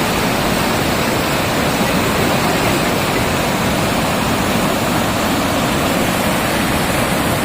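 Snowmelt mountain stream rushing steadily.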